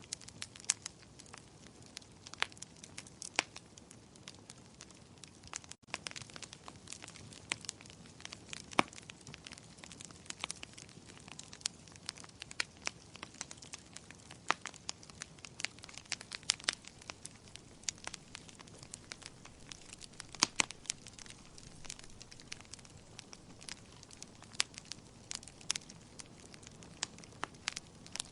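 Wood fire crackling in a fireplace: irregular sharp pops and snaps over a soft steady hiss of the flames.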